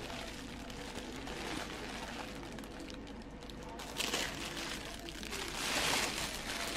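Plastic bag crinkling as a loaf is handled in it, in a brief rustle about four seconds in and a longer, louder one near the end, over a steady low background hum.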